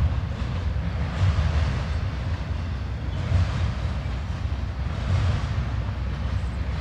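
Double-stack intermodal freight train's cars rolling past at track speed, a steady rumble of wheels on rail that swells every couple of seconds as the cars cross the diamond.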